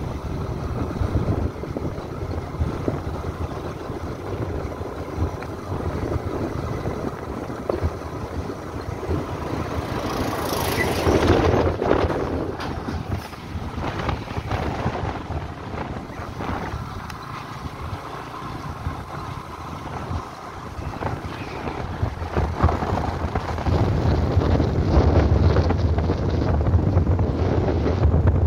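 Wind buffeting the microphone over the running of a motorbike ridden along a road, with a low steady rumble. There is a louder rush about ten seconds in, and the low rumble grows stronger near the end.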